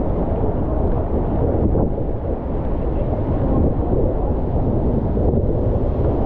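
Rushing river whitewater from a rapid close ahead, a steady low rush with wind buffeting the camera's microphone.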